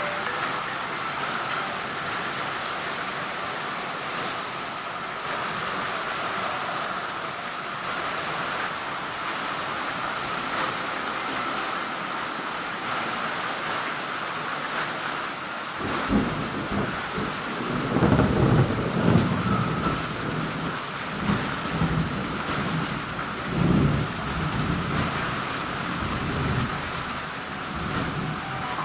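Heavy rain falling steadily. Partway through, thunder begins to rumble in long rolling swells, with its loudest peaks a couple of seconds after it starts and again a few seconds later.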